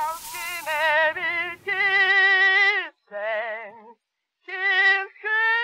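Old phonograph cylinder recording of a solo male voice singing, played back after digitisation and noise reduction. The notes are held with a wide vibrato in short phrases, with a brief silence between phrases about four seconds in, and no surface hiss left behind them.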